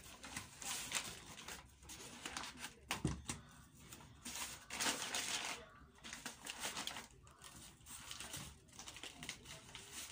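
Paper crinkling and rustling in hands as a purchase is wrapped, in irregular handfuls, with a thump about three seconds in.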